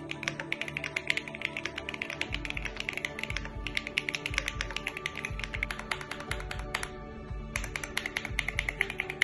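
Fast typing on a Keychron Q5 Max mechanical keyboard, a dense run of thocky keystrokes that pauses briefly about seven seconds in, over background music.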